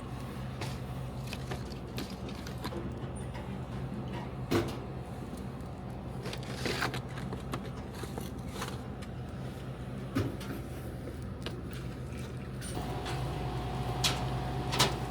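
Steady low machine hum with scattered knocks and clunks, as of drinks and snacks being loaded into a vending machine. A steady higher tone joins near the end.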